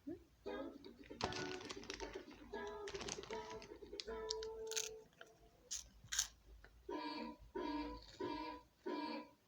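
A person imitating iPhone sound effects with their voice alone: sung and hummed tones, a few sharp mouth clicks like keyboard taps, then four short repeated notes near the end.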